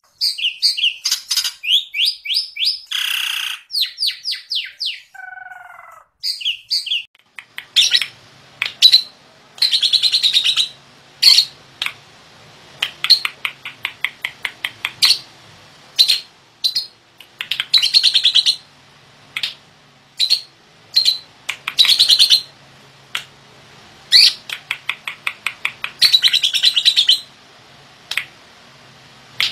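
Short intro sound effects in the first seconds: quick chirpy notes, a noisy burst and a falling tone. Then a yellow pastel lovebird calls in repeated bursts of rapid, harsh chattering chirps, one to two seconds apart, its voice rough.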